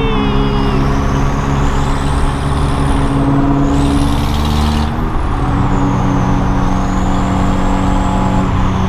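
Car engine under hard acceleration, loud and steady, with a high whine that climbs in pitch. It breaks off briefly about three and a half seconds in, climbs again, then falls away and levels off after about five seconds as the throttle eases.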